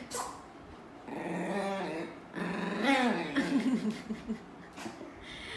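Dogs growling in play while tugging at a plush toy between them, in two stretches of about a second each.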